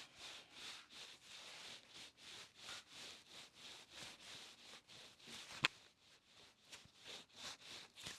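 Hands rubbing rhythmically in quick massage strokes, about three strokes a second, faint, with one sharp click a little past halfway.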